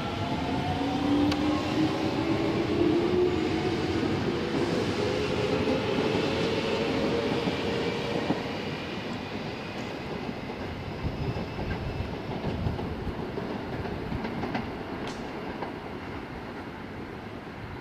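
Electric commuter train pulling out of the station: a whine rising in pitch as it accelerates over the first several seconds, then wheels rumbling and clicking over rail joints as it draws away and grows gradually quieter.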